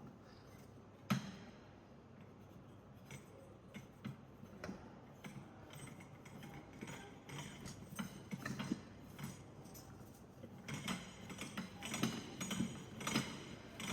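Clicks and knocks of metal trolley parts being handled and fitted together as the wheels are screwed into the trolley base. There is one sharp knock about a second in and a busier clatter in the last few seconds.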